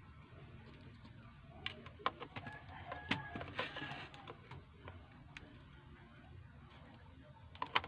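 Clicks and taps of a small speaker driver being handled and pressed into the plastic housing of a portable Bluetooth speaker, over a low steady hum. A bird's drawn-out call sounds behind it about two and a half seconds in.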